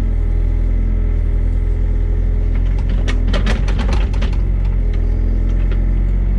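Diesel engine of a digging machine running steadily under work. A quick run of clanks and rattles comes about three to four seconds in.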